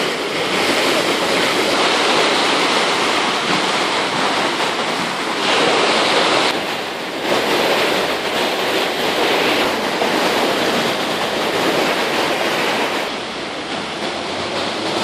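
Floodwater of a small concrete-lined city river rushing and churning as it overflows its banks after heavy rain, loud and steady.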